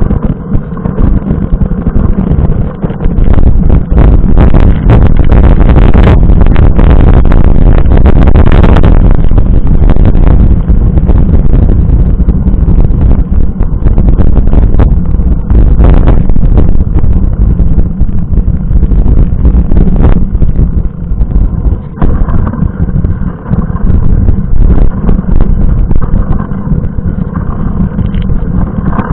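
Heavy wind rumble and buffeting on a bike-mounted camera's microphone while riding a mountain bike on a wet road in the rain. An oncoming car passes from about four to ten seconds in, its tyres hissing through the water on the road. This is the loudest part.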